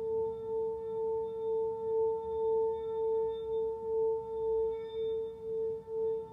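Tibetan singing bowl sounding a sustained, steady tone with a fainter higher overtone, its loudness wavering in slow pulses about twice a second.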